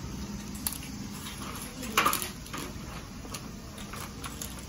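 A plastic shopping basket lifted off a stack and set onto a metal shopping cart: a sharp click, then a louder clatter about two seconds in and a few lighter knocks, over a steady low hum.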